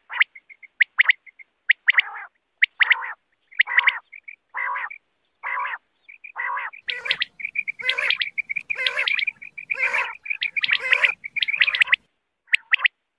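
Common quail calling over and over in short, sharp notes, about one call a second at first. From about halfway the calls come thicker and overlap, then break off briefly near the end before starting again.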